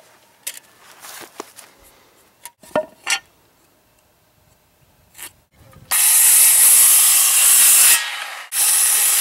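Corded circular saw cutting through a wooden 4x4 post: it starts about six seconds in, with two loud stretches of cutting and a short pause between them. Before it come small clicks and scratches as the wood is measured with a tape measure and marked with a pencil.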